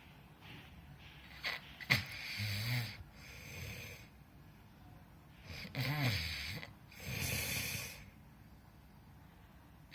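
A person snoring: two snoring breaths about four seconds apart, each a low, pitched snore followed by a breathy exhale.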